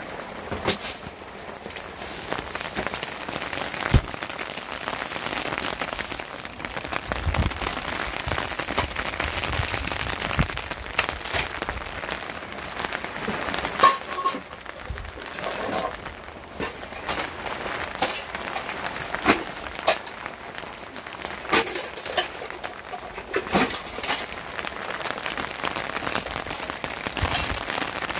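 Steady rain falling, with scattered sharp taps and knocks all through.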